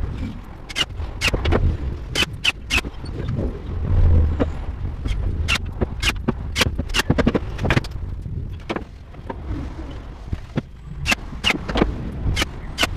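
Irregular sharp knocks and clicks of wooden cabinet panels and tools being handled and set down, over low thumps and scraping. They come every fraction of a second, with a louder cluster about four seconds in.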